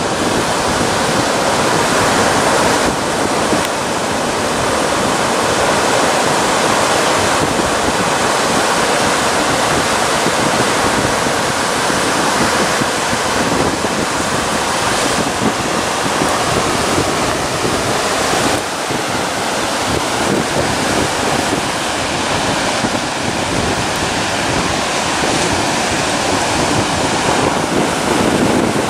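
Steady rush of sea surf washing over a shallow reef, with wind on the microphone.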